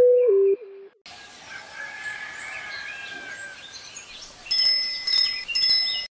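A few plain low notes stepping between two pitches in the first second, then birds chirping over outdoor ambience, and a bicycle bell rung three times near the end.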